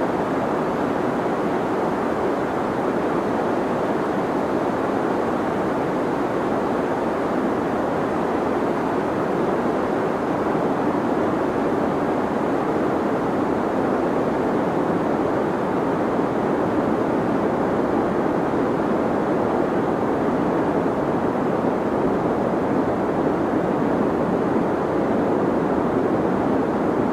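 Deep white noise for sleep: a steady, unchanging rushing hiss weighted toward the low and middle range, with little at the top.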